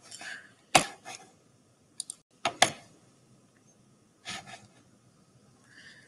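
A handful of sharp clicks and knocks at irregular intervals, about six in all, the loudest at just under a second and near two and a half seconds in, with little sound between them.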